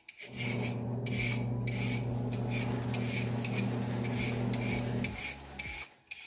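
A knife scraping the skin off a raw sweet potato: a loud, continuous rasping rub lasting about five seconds and stopping near the end, over background music with a steady beat.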